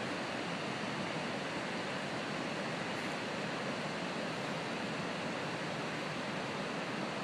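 Steady rush of water pouring over a dam's spillway in heavy flow.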